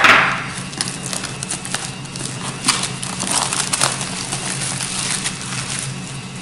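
Plastic shrink wrap being torn off a small cardboard product box, with a sudden loud rip at the start, then crinkling and crackling as the film is pulled away and the box is handled.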